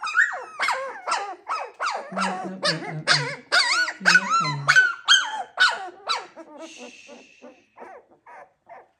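Miniature Schnauzer puppies, nearly three weeks old, squealing and yelping in quick short calls, about three a second, while being handled. The calls grow fainter over the last few seconds.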